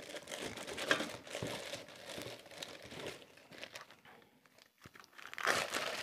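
Plastic wrapping crinkling and rustling as a stainless-steel mixer-grinder jar is handled and pulled out of its bag, in uneven bursts that ease off and then come back louder near the end.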